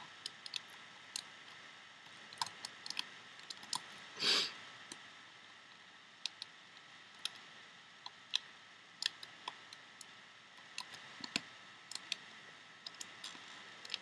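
Plastic loom hook and rubber bands clicking against the plastic pegs of a Rainbow Loom as bands are hooked up the pegs: scattered sharp clicks, with one louder, longer noise about four seconds in.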